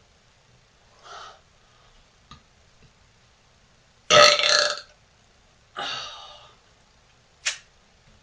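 A woman burping while eating: a loud burp about four seconds in, followed by a second, slightly quieter one. There is a fainter sound about a second in and a short sharp one near the end.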